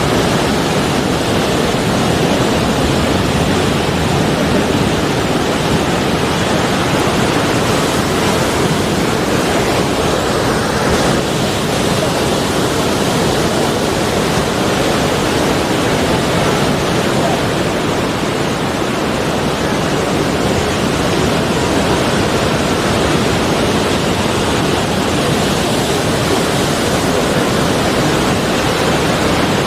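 Sea waves washing on the shore in a steady, dense rush of surf with no distinct breaks between waves.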